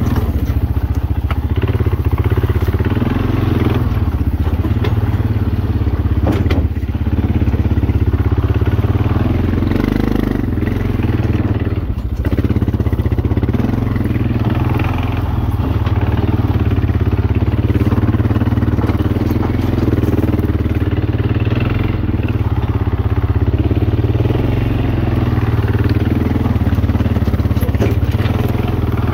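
Small 250 cc ATV engine running steadily, easing off briefly twice.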